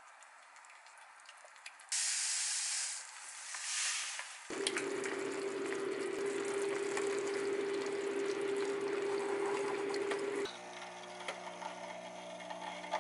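Onion broth hissing and bubbling in a frying pan over a steady hum. About ten and a half seconds in, a capsule coffee machine's pump starts a buzzing hum as it dispenses hot water into a glass cup.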